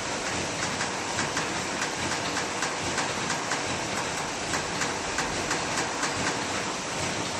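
Paper lid making machine running steadily, its mechanism clicking in an even rhythm of about three strokes a second over a constant machine noise.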